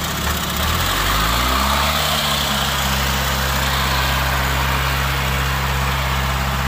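Diesel engine of a Kubota tracked crawler tractor revving up about a second in, then running steadily at higher revs as the machine climbs onto a barge.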